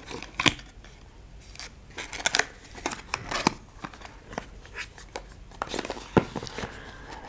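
Small cardboard boxes being handled: a plastic tube slid back into its box and the box pushed back into its slot in a cardboard advent calendar, a scattered series of short scrapes, taps and clicks.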